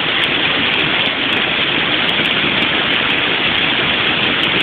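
Steady rush of a shallow mountain river running over rocks and small rapids.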